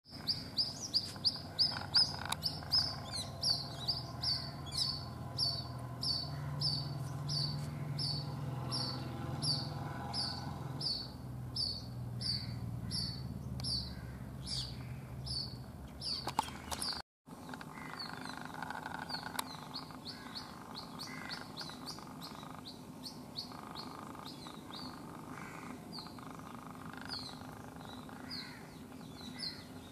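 White-breasted waterhen chick calling non-stop: a short, high peep repeated about twice a second. The peeps grow fainter and less regular after a brief break a little past halfway.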